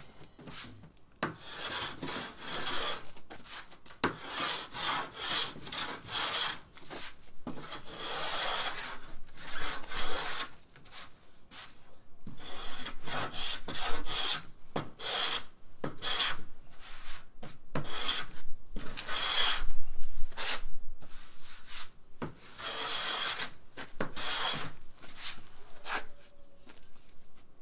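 Hand plane shaving the edge of a plywood sheet in repeated short strokes, each a rasping hiss of a second or less, with brief pauses and a few sharp knocks between strokes.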